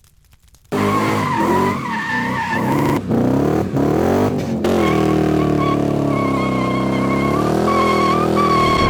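Car doing a burnout: the engine held at high revs, its pitch sagging and rising, while the tyres squeal. It cuts in suddenly under a second in.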